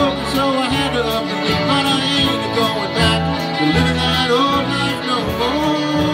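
Old-time string band playing a bluegrass-style tune, with fiddle and guitar over long held low bass notes.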